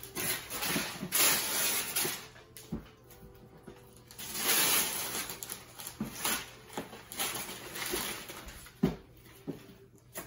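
Gift-wrapping paper being ripped and crumpled off a large cardboard box, in two longer tearing rips with smaller rustles and crinkles between.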